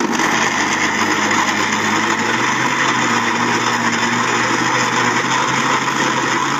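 Electric mixer grinder (mixie) switched on and running at full speed, grinding roasted garlic, green chillies and mint into chutney. Loud, steady motor noise that starts abruptly at the very beginning.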